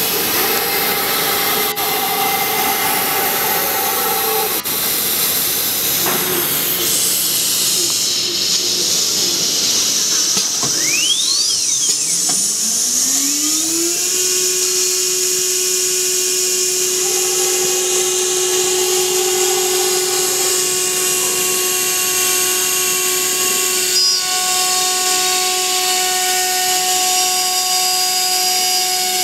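CNC router spindle whining over a steady hiss: its whine dies away in the first third, then about eleven seconds in it spins up with a rising whine and settles into a steady high whine for the rest.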